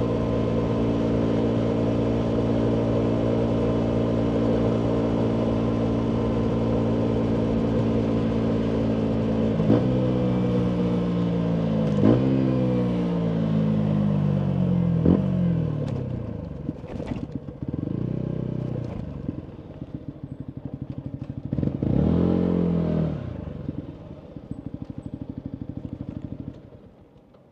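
A 2019 Yamaha MT125's single-cylinder 125 cc four-stroke engine running through a full Akrapovic exhaust. It holds steady revs, then slows with a falling pitch, and three sharp pops crack out of the exhaust on the overrun. It drops to a lumpy idle with two short blips of the throttle, then cuts out near the end.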